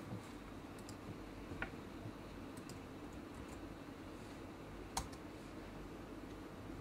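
A few sparse clicks at a computer's keyboard and mouse, the loudest about five seconds in, over a steady low hum.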